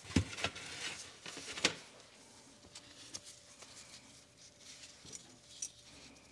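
Handling noise from metal BMW double VANOS parts on a metal tray: a dull knock just after the start and a sharper knock about a second and a half in, with scattered small clicks between.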